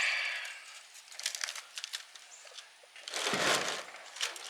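Copper coil windings and their insulation being pulled and worked loose from an electric motor's stator. Crinkling and scraping with scattered clicks, and a louder rasping scrape about three seconds in.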